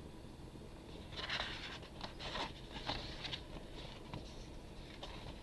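Sheets of patterned paper being handled and leafed through, with a few short rustles of paper between about one and three and a half seconds in.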